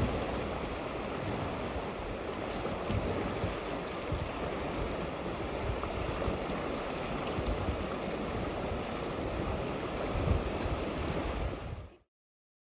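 Potomac River water rushing in a steady hiss, with gusts of wind rumbling on the microphone. The sound cuts off abruptly near the end.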